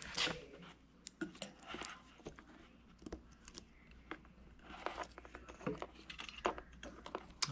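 Faint, scattered clicks and light metallic rattles of small metal hose clamps being handled and sorted.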